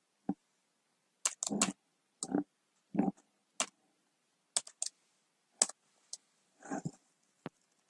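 Computer keyboard being typed on: about a dozen separate key clicks, unevenly spaced with short pauses between them.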